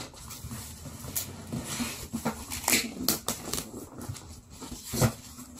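Cardboard shipping box being pulled open by hand: the flaps scrape, crease and snap in a series of irregular rustles and clicks, with a louder thump about five seconds in.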